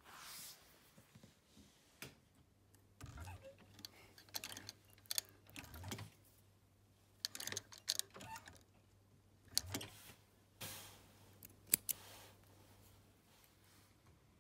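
Small clicks, taps and rustles of a leather zip pull tab, its metal ring and tweezers being handled and worked. From about three seconds in, a low steady hum from the sewing machine runs underneath.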